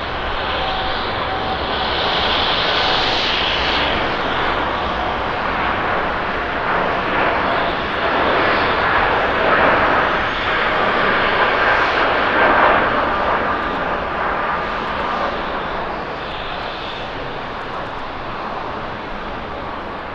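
Jet engines of a Boeing 787-10 Dreamliner (GE GEnx) at takeoff thrust: a steady, loud jet noise through the takeoff roll and liftoff, loudest about halfway through, easing off as the airliner climbs away.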